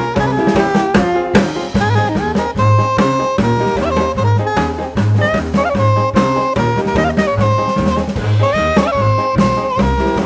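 Background jazz music: saxophone or brass melody over a steady bass line and drum kit.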